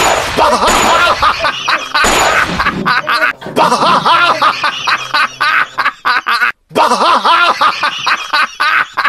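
Rapid electronic gunfire sounds: a long string of quick pulses with warbling tones, broken by short gaps about three and six and a half seconds in.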